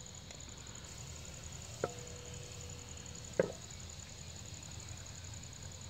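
Cumin and red chilli powder frying faintly in hot oil in a wok for a tadka. Two sharp knocks about a second and a half apart as the pan is handled.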